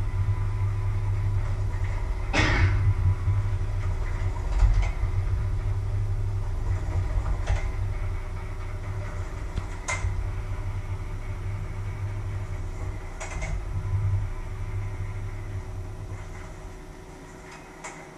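Kitchen handling sounds: about six short knocks and clinks of bowls and utensils over a steady low rumble, which fades away near the end.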